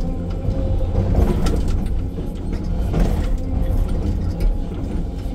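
Hydraulic crawler excavator running under load, heard from inside the cab: the diesel engine's low running sound with a steady whine over it while the arm and bucket are worked. A few short knocks come through as the bucket digs into the soil.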